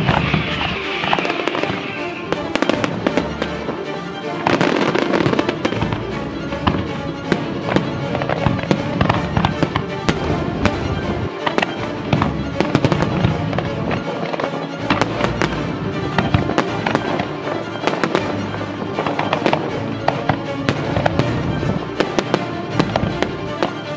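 Aerial fireworks display: shell bursts going off in a dense, continuous run of bangs, over background music.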